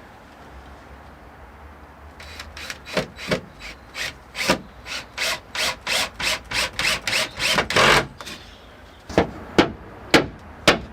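Handsaw cutting through a wooden board in steady back-and-forth strokes, about three a second, the last stroke long as the cut finishes. Near the end come a few sharp knocks on wood.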